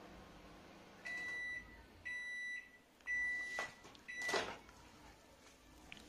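LG convection microwave oven beeping four times, a second apart, the signal that its grill cycle has finished; its faint running hum stops just before the beeps. Near the end of the beeping come two sharp clacks as the oven door is unlatched and pulled open.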